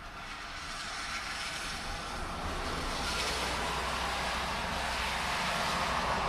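A car approaching on a wet road in the rain: tyre hiss and a low engine rumble build steadily louder over the rain's hiss.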